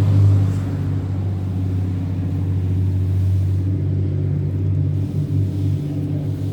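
Large engine running steadily at an even speed, a low drone that holds constant.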